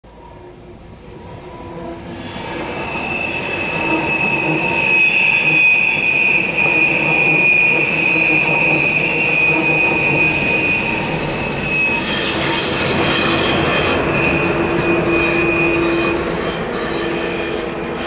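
Railjet passenger train running through a tight curve, its wheels squealing on the rails in several high steady tones over the rumble of the wheels. It builds over the first few seconds and eases off near the end as the train pulls away.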